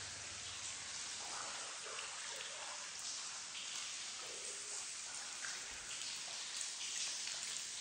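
Water dripping and falling like rain from the roof of a wet brick railway tunnel: a steady hiss of many drops with no pause.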